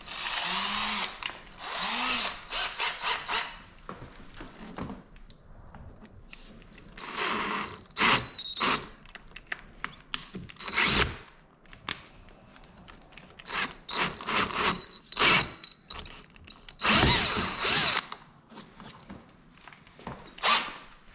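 Cordless drill with a large twist bit enlarging pilot holes in a C7 Corvette's rear body panel to take rivnuts. It runs in a series of short bursts with pauses between.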